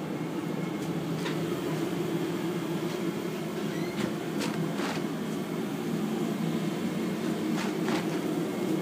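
A steady low mechanical hum with a few faint clicks over it.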